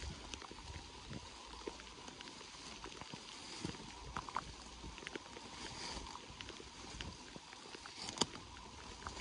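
Footsteps swishing through tall wet grass and brush, with irregular soft thuds of boots and scattered sharp clicks, the sharpest near the end.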